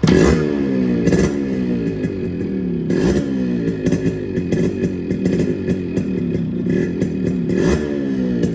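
Restored Yamaha RX 100's single-cylinder two-stroke engine being revved in repeated throttle blips, its pitch sliding down after each one.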